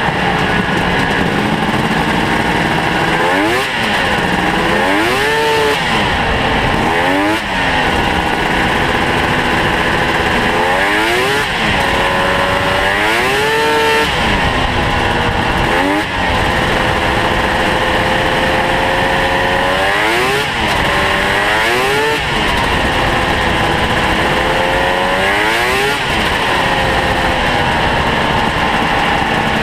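Ski-Doo Mach Z snowmobile's home-ported two-stroke engine under way, heard from the seat: the revs climb and drop again and again as the throttle is opened and eased off, with a steadier stretch at speed in the middle.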